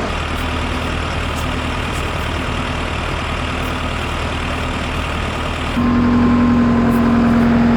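Diesel engine of a mobile topsoil screening plant running steadily. About six seconds in, a loud steady whine joins and the sound gets louder as the machine is brought up to working revs.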